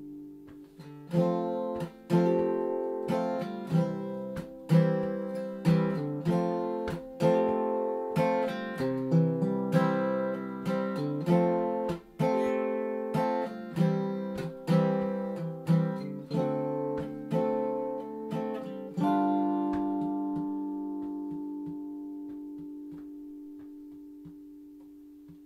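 Acoustic guitar strumming chords at an even pace, about one a second, as an instrumental ending. About three-quarters of the way through, a last chord is struck and left to ring out, fading slowly: the song's closing chord.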